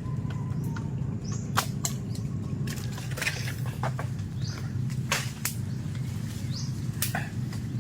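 Twigs and leaves rustling and cracking with sharp handling clicks as someone climbs and moves in a fruit tree, over a steady low wind rumble on the microphone. A few short high chirps sound between the cracks.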